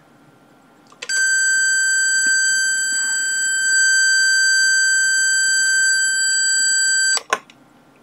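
Buzzer of a Maxitronix transistor light-alarm circuit sounding a steady high-pitched tone, driven by an astable multivibrator's square wave while the light sensor is covered and the latch holds the alarm on. It starts about a second in, lasts about six seconds and cuts off suddenly with a couple of clicks.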